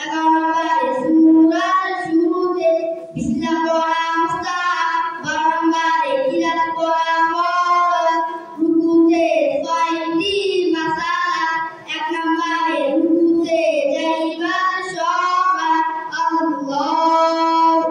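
Two boys singing together in unison into microphones, unaccompanied, in long held phrases with two brief pauses for breath.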